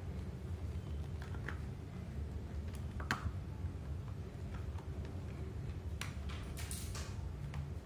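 Soft clicks and rubbing of a thin silicone sleeve being stretched and worked down over a plastic TV remote, with a sharper click about three seconds in and a run of scrapes near the end, over a steady low hum.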